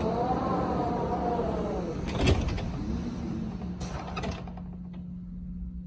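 Storm wind howling against glass entrance doors, with a whistle that rises and falls. A sharp knock comes about two seconds in and a few quick rattles a little later, and a steady low hum runs underneath.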